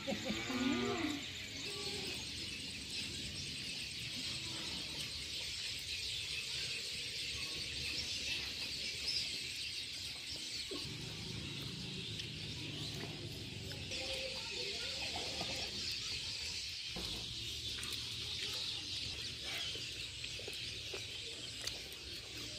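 Rural outdoor ambience: a steady high-pitched chorus of birds and insects, with a brief call about a second in.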